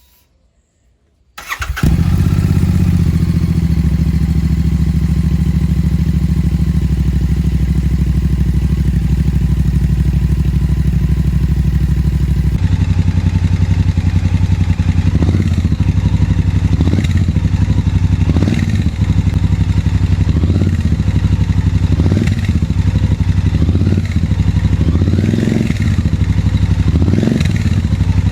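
Royal Enfield Super Meteor 650's 648 cc parallel-twin engine, fitted with Powerage free-flow slip-on exhausts, starting about a second in and settling into a steady idle. About halfway through, the throttle is blipped in short revs roughly every two seconds.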